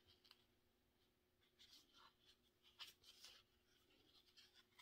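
Near silence, with a few faint soft scratches and rustles of a crochet hook drawing yarn through stitches.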